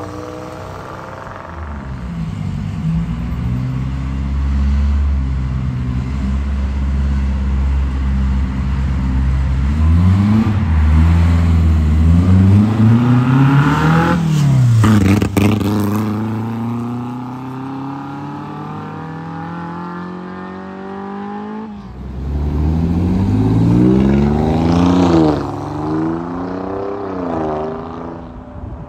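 Sports car engines accelerating past one after another, among them Alfa Romeo Giulia Quadrifoglio twin-turbo V6s and a classic Abarth-tuned Fiat 850. A steady low engine note gives way to revs climbing to a peak and falling away about halfway through. The sound cuts off abruptly twice, and near the end an engine revs up and drops back several times in quick succession.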